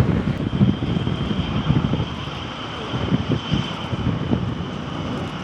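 De Havilland Vampire jet fighter's Goblin turbojet running in flight: a steady high whine over a low rumble, with wind gusting on the microphone.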